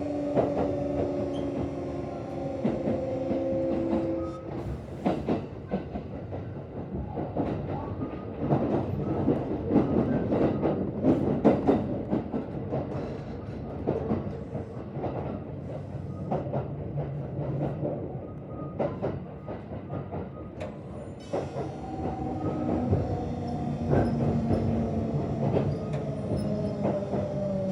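Kintetsu 1026-series electric train heard from on board as it approaches a stop: steady VVVF inverter tones for the first few seconds and again near the end, with wheels and rails rattling and clattering in between. The recorder says this set's inverter gives an abnormal raspy growl mixed into its normal tone in the low-speed asynchronous range, above all under regenerative braking.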